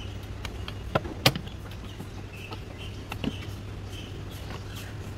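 Plastic footwell trim of a Mazda CX-5 being pulled and handled: a scatter of sharp clicks and knocks, the two loudest about a second in and another a little past three seconds. A steady low hum runs underneath.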